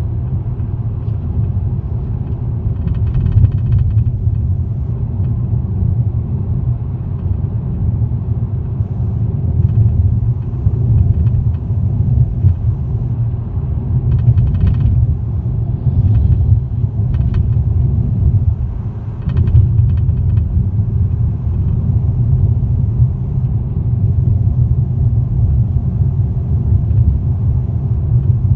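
2018 Toyota Corolla: a steady low rumble with a brief rattle coming through four times, spaced a few seconds apart. This is the rattling noise the car is being recorded for.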